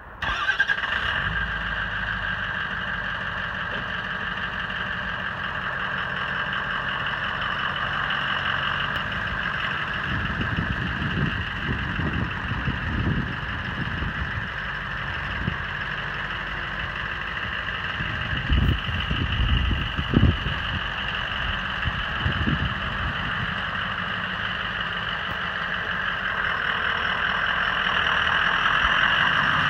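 2004 Ford F-550 Super Duty truck engine idling steadily, coming on abruptly at the start, with a steady high whine over the running noise. It grows a little louder near the end, and a few dull thumps come through in the middle.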